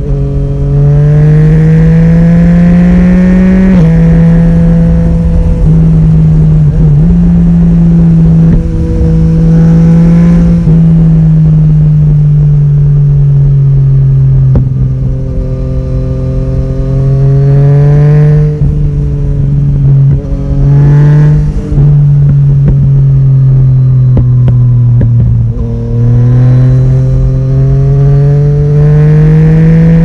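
Yamaha Tracer 900 GT's three-cylinder engine, freshly retuned with Woolich on a dyno, heard through its Akrapovic exhaust while riding. The engine note climbs under acceleration, drops briefly at each gear change, sinks twice as the throttle is eased off, and climbs again near the end.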